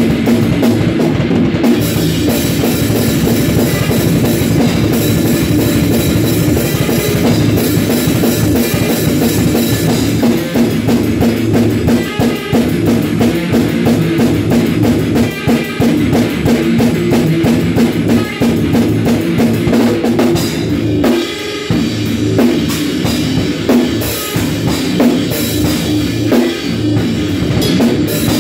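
Drum kit played in a fast, continuous rock groove, with kick drum, drums and crash cymbals. There is a brief break about three quarters of the way through.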